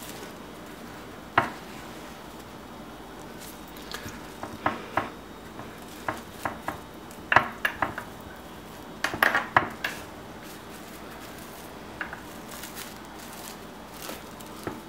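Plastic cling wrap crinkling and rustling in short, scattered bursts as hands roll it tightly around a pastry-wrapped roast on a wooden cutting board. There is a single sharp knock about a second and a half in, and the handling is busiest in the middle.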